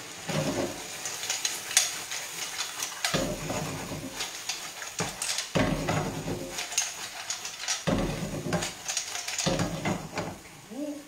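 Frying pan of potato gnocchi with clams and porcini being stirred and shaken on a gas hob: the food sizzles, and the pan and utensil scrape and clatter in strokes every two to three seconds.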